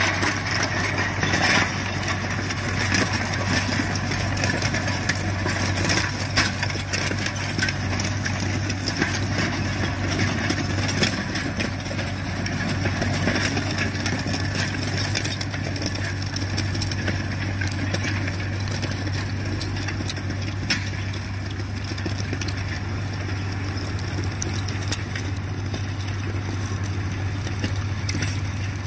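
Tractor diesel engine running steadily under load as it pulls a disc plough through the soil.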